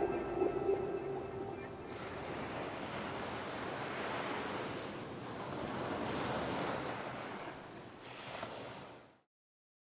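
A rushing wash of water-like noise that swells and ebbs like waves, under the last held tones of the soundtrack music, which fade out in the first two seconds. The rush cuts off suddenly about nine seconds in.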